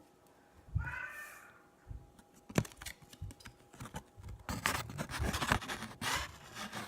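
A stack of baseball cards being handled and flipped through: quick clicks and rustling scrapes of card stock against card stock, sparse at first and growing busier past the middle.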